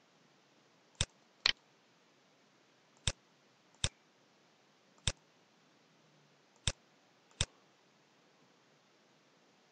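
Computer mouse button clicks: seven short, sharp clicks at uneven intervals, some in quick pairs, as cells and then the whole sheet are selected in a spreadsheet.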